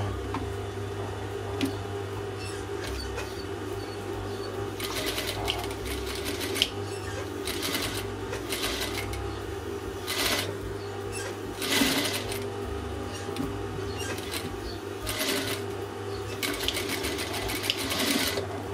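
Sewing machine stitching knit fabric in about six short runs of half a second to a second and a half each, with a steady low hum between them.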